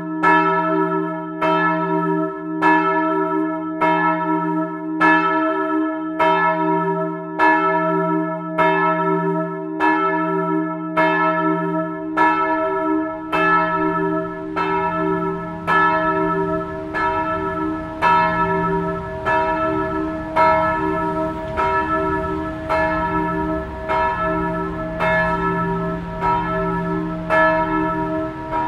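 Church bells swinging in a steel bell frame and ringing, the clappers striking about three times every two seconds over a steady hum of lingering bell tones. A low rumble comes in about halfway through.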